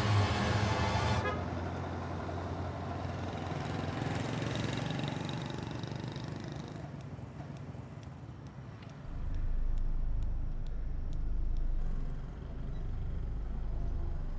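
Background music cuts off about a second in, then a car passes, its engine and tyre noise swelling and fading. From about nine seconds in a louder low engine rumble of a passing vehicle takes over.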